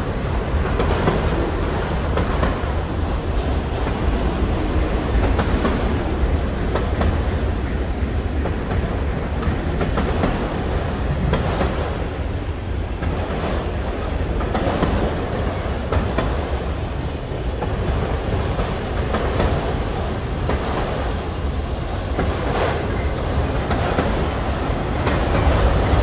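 Freight train cars, autoracks among them, rolling past: a steady low rumble with the wheels clicking again and again over rail joints.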